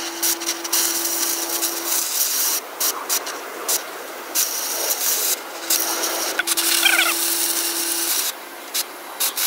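Oxy-fuel cutting torch hissing as it cuts the welds off the steel attachment brackets of a loader bucket, with crackling and spatter from the molten steel. A steady low hum comes and goes twice, and a brief high chirping call sounds about seven seconds in.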